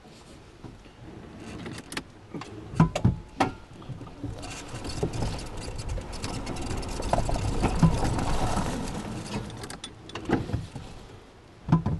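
Tracker EV electric UTV turning around on a dirt trail. A few sharp knocks come about three seconds in, then tyre and trail noise swells as it moves, loudest about eight seconds in, and fades. There are a couple more knocks near the end.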